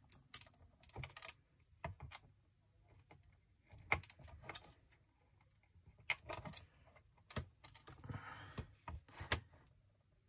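Irregular light clicks and rattles of loose wire leads being handled and fitted into the terminals of an electronics kit board, with a short rustle of wires about eight seconds in.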